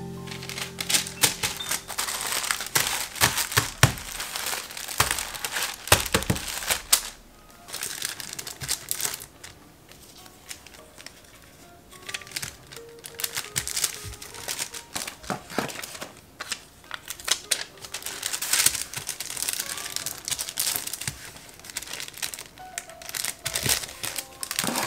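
Glassine paper bags crinkling and rustling as they are handled and stacked, in irregular bursts, with a quieter stretch about eight seconds in. Background music plays underneath.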